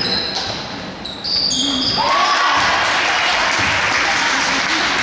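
Basketball shoes squeaking on a hardwood gym floor. About a second in, a gym crowd starts cheering and clapping and keeps it up, greeting a made three-point shot.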